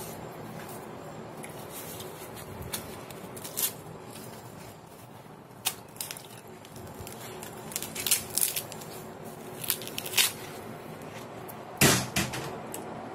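Green husks being torn and peeled back from a fresh ear of corn by hand: scattered crackling rips, the loudest about twelve seconds in, over a steady faint hum.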